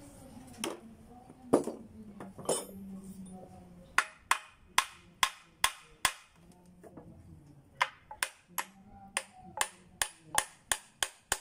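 Hammer blows on an Isuzu C240 manual transmission's housing. There are a few separate knocks, then two runs of quick, sharp taps at about two to three a second, struck to work the casing loose for disassembly.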